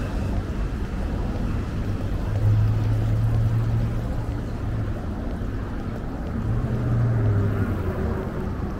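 Low rumble of street traffic, swelling twice as louder vehicles pass.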